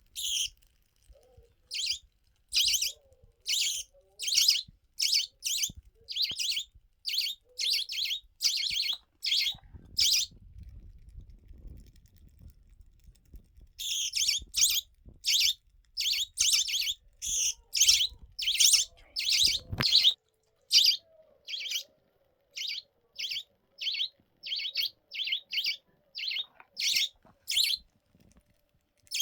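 Budgerigar giving a long series of short, high, harsh chirps, about one or two a second, with a pause of a few seconds near the middle. A faint low rumble of handling noise runs under the middle part.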